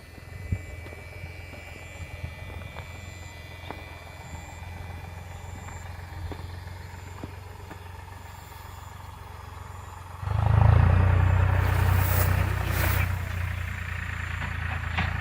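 A motor vehicle's engine running, which suddenly becomes much louder about ten seconds in and stays loud.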